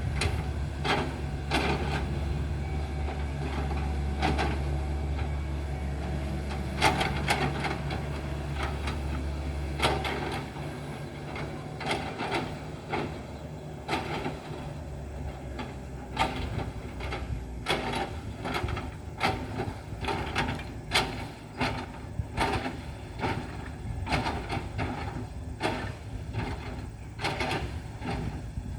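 Excavator working rock: its diesel engine runs with a steady low drone that drops about ten seconds in, under irregular sharp knocks and clanks of steel on stone.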